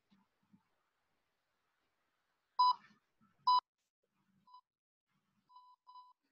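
Short electronic beeps, all at one pitch: two sharp beeps about a second apart, then three fainter ones.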